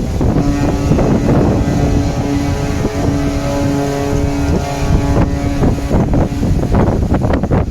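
Wind buffeting the microphone over a low rumble. A steady pitched tone with overtones sounds from about half a second in to about four and a half seconds, with a brief break in the middle.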